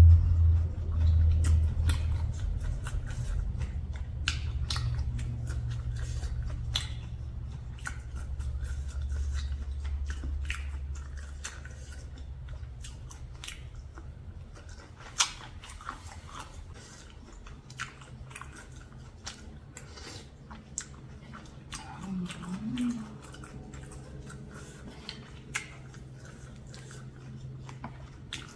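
Close-up eating sounds of someone chewing a big mouthful of large shrimp in spicy seafood papaya salad: wet chewing with scattered crunches and sharp clicks. A steady low hum runs underneath, weaker after the first ten seconds.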